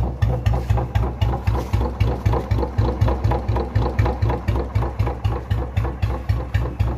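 Royal Enfield Bullet's single-cylinder four-stroke engine idling, its exhaust giving the even, slow 'dug dug' beat of about four thumps a second.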